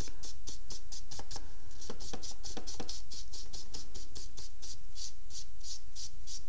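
Charcoal stick scratching on paper in quick, short, repeated strokes, about three a second, as individual strands are drawn in.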